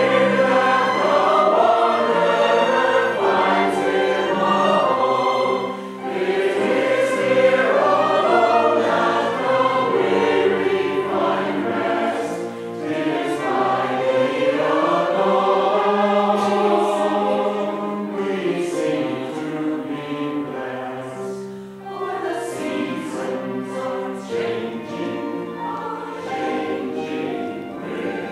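Mixed choir singing an early American shape-note hymn tune in parts, accompanied by viola and cello. The sound eases briefly twice, the second time about three-quarters of the way through, and goes on a little softer after that.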